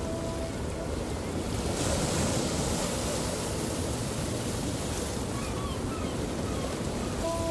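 Ocean surf: waves washing in with a steady rush, one wave breaking about two seconds in. A held music chord fades out just after the start and comes back near the end.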